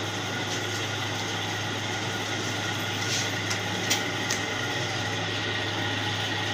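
A steady machine hum under a broad noise, with a few sharp clicks or knocks about three to four seconds in.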